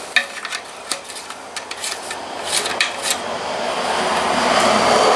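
Antique 2-hp Briggs & Stratton engine being pull-started after a shot of carburetor cleaner: a few sharp clicks and knocks from the rope and handling, then about three and a half seconds in the engine catches and runs up, loudest near the end.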